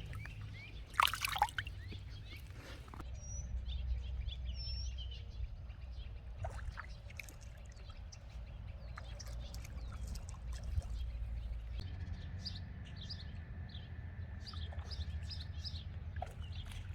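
Small birds chirping intermittently, with scattered short high calls and a thin steady trill for several seconds in the second half, over a steady low rumble. A short burst of noise about a second in is the loudest moment.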